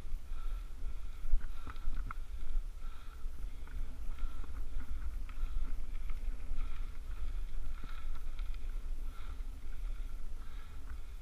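A cyclist breathing hard in an even rhythm, about one breath every half second to second, straining on a steep hill climb. Underneath is a low rumble of wind and road vibration on the bike-mounted camera, with a few faint clicks.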